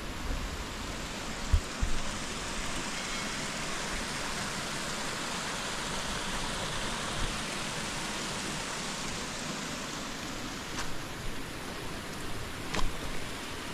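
Steady rush of water, with a couple of low knocks a few seconds in and two sharp clicks near the end.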